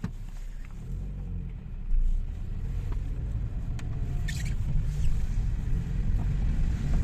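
Lada Vesta moving off, heard from inside the cabin: a low road-and-drivetrain rumble with a faint hum from brake discs rusted overnight, their rust layer rubbing on the pads. The rumble grows louder about two seconds in, and a brief high squeak comes about four seconds in.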